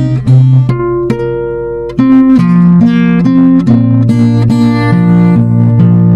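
Acoustic guitar played fingerstyle as a solo instrumental, with single plucked notes ringing over a bass line. It drops to a softer phrase about half a second in and comes back louder about two seconds in.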